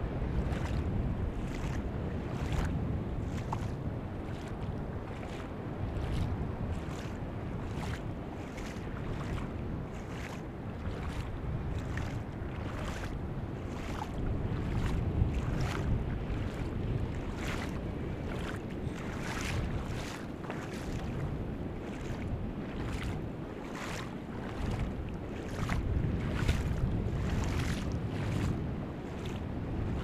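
Ocean surf breaking out beyond a shallow tidal pool, heard as a steady low rumble with wind on the microphone, over which small water splashes and trickles in the shallows come every half second to a second.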